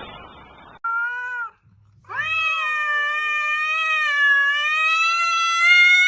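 A cat meowing: a short meow about a second in, then one long, drawn-out yowl held at a steady pitch for several seconds.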